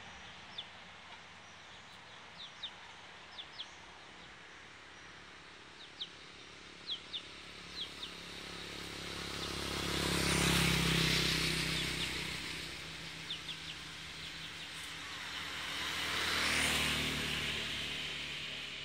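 Small birds chirping in short, high, downward notes, scattered through the first half and again later. Two vehicles pass by one after the other, each swelling up and fading away, the first about halfway through and the second near the end.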